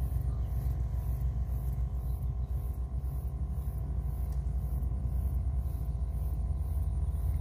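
Steady low rumble that wavers slightly in loudness, with a faint hum of a few steady tones above it.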